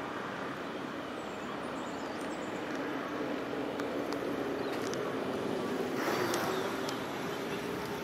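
A passing motor vehicle's engine drones over a steady rushing noise, creeping slightly up in pitch and swelling louder mid-way before easing off. A brief hiss rises and fades about six seconds in.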